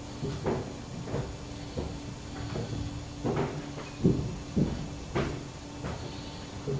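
Irregular bumps, knocks and rustles of a webcam and its microphone being handled and moved around inside a small tent, over a steady low hum.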